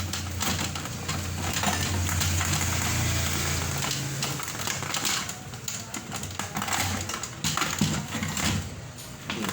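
Handling noise from fitting a stereo's circuit board and parts back in place: rustling, then irregular clicks and knocks in the second half, over a steady low hum that stops about four seconds in.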